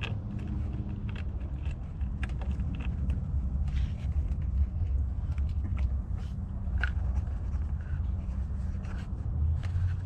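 A steady low rumble with scattered light clicks and taps, as a car battery terminal clamp is handled.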